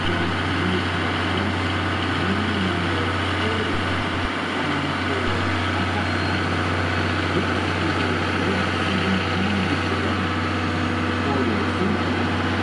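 Steady low hum and running noise of electric trains at a station platform as the Tobu Revaty express creeps slowly in, with faint voices in the background.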